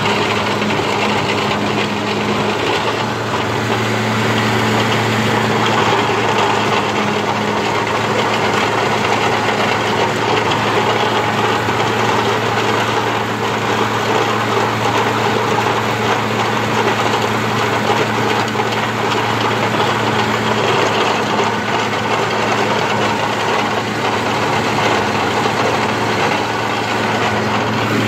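Engine of a compact water-well drilling rig running at a steady, unchanging speed: a constant low hum under a dense mechanical clatter.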